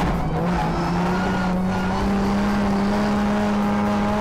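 Nissan Silvia S15 drift car's 2JZ straight-six engine heard from inside the cabin, running at a steady pitch that rises slightly about half a second in. The car is warming its tyres and its still-cool oil (67 °C).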